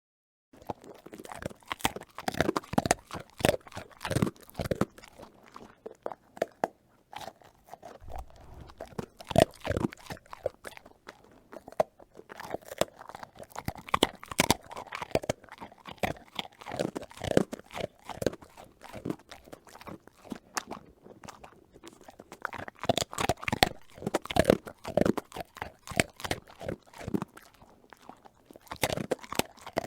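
A dog crunching and chewing a Milk-Bone dog biscuit: irregular clusters of sharp, dry crunches with short pauses between bites.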